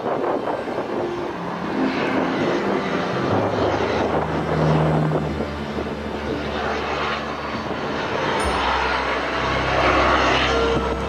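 Two Sikorsky CH-53E Super Stallion heavy-lift helicopters flying past, heard as a steady, dense rotor and turbine noise that swells and eases as they cross.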